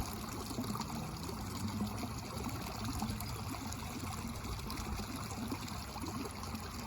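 Water trickling and flowing steadily, like a small stream, with no breaks.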